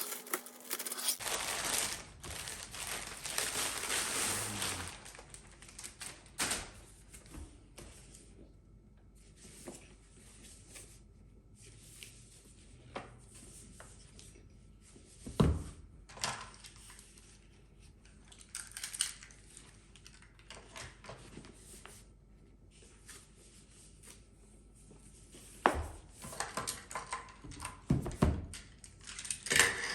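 Unboxing of a travel tripod: packaging rustles and crinkles for the first few seconds, then scattered clicks and knocks as the parts are handled, with a few louder thunks in the second half.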